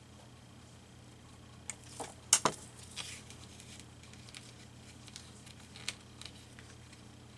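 A few light taps and clicks of craft tools and paper being handled on a desk, the loudest two close together about two and a half seconds in, over a low steady hum.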